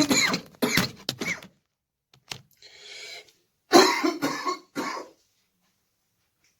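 A man coughing in rapid fits, a string of coughs at the start and then three more close together about four seconds in: the repeated bouts of a COVID-19 infection.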